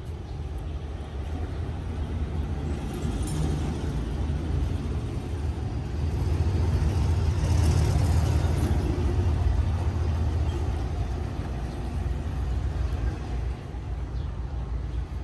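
Low steady rumble, swelling to its loudest about halfway through and easing off again.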